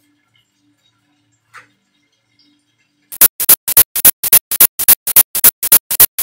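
Hand work at a kitchen counter: rapid, even back-and-forth scraping strokes, about five a second, starting about three seconds in and loud close to the microphone.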